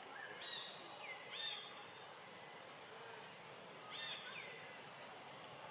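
High-pitched animal calls, three short ones, each a held note that slides down in pitch, over a faint outdoor background hiss.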